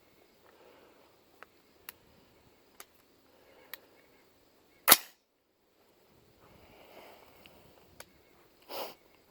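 A single shot from a Ruger 556 MPR, an AR-15-pattern rifle in 5.56 NATO, sharp and sudden about five seconds in, with a few faint clicks before it and a softer, duller burst near the end.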